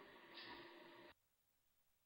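Faint steady hiss of background noise with a brief louder breathy puff about half a second in. The sound cuts off abruptly to near silence just after a second.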